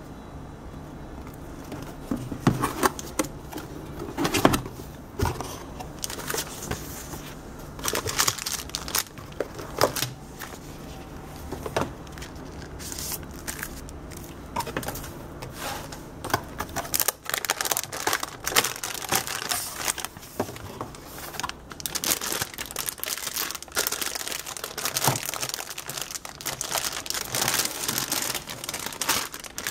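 Cardboard motherboard box and its paper and packaging contents being opened and handled by hand: scattered knocks and scrapes of cardboard, then denser crinkling and rustling of packaging in the second half.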